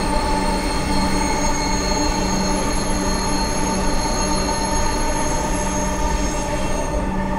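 Inside a Dhaka Metro Line 6 car running at speed on the elevated line: a steady rolling rumble with several constant whining tones over it, unchanging throughout.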